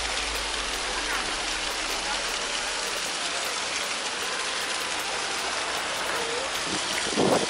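Water from the fountain's jets splashing steadily into its stone basin, with a brief louder sound near the end.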